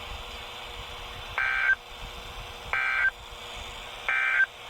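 Emergency Alert System end-of-message code on NOAA Weather Radio: three short bursts of screeching digital data tones, a little over a second apart, signalling that the alert broadcast is over.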